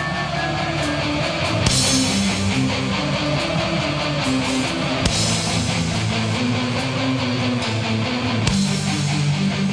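Heavy rock music driven by a distorted electric guitar riff, with a sharp accented hit about every three and a half seconds.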